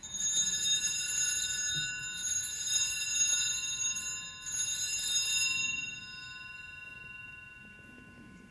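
Altar bells rung at the elevation of the host during the consecration: a cluster of small bells shaken for about six seconds, their ringing wavering, then dying away.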